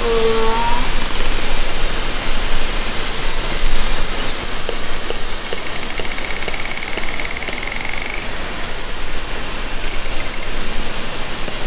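Hydrophone recording of southern resident killer whales (J and K pods) under a steady hiss of water noise. In the first second comes the tail of a short, pitch-bending orca call. From about halfway in, a faint, high, slightly rising call lasts about two seconds, with scattered clicks.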